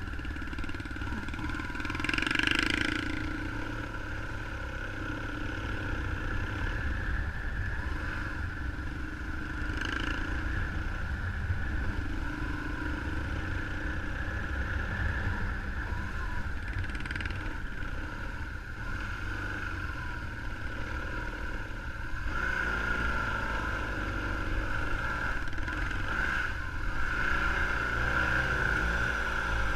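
A motorcycle engine running steadily while riding, over a constant low rumble, with a few brief louder moments, the loudest about two seconds in.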